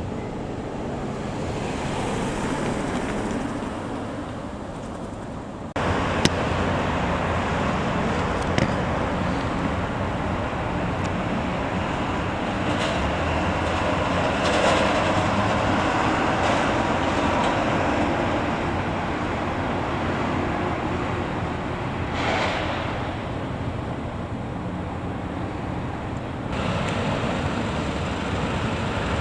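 Steady road traffic noise with a constant rushing sound, stepping up sharply in level about six seconds in, with a couple of sharp clicks just after.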